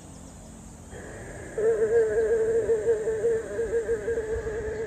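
Fly-like insect buzzing: a loud, steady buzz with a regular pulsing wobble that starts abruptly about a second and a half in.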